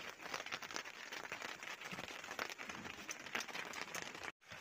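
Rain pattering on a boat: a dense, irregular crackle of drops with no clear voices, cutting out briefly near the end.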